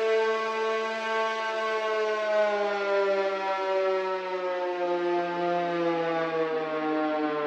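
Siren sound effect played on a GarageBand for iOS software instrument: one sustained electronic tone, rich in overtones, sliding slowly down in pitch.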